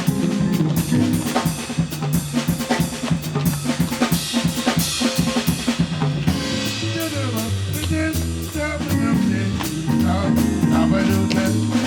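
Instrumental jazz-style band music with a drum kit, snare and rimshot hits over a walking bass line and sustained chords.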